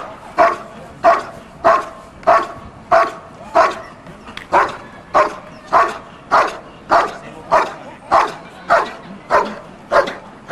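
Belgian Malinois barking steadily and rhythmically, about one and a half barks a second, as it guards a helper holding a bite sleeve in protection training.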